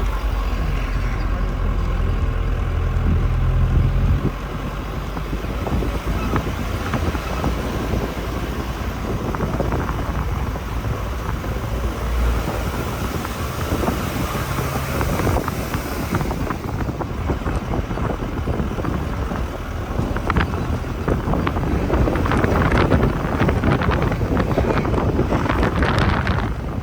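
A vehicle running on the move, with wind buffeting and crackling on the microphone. A deep rumble is strongest for the first four seconds or so.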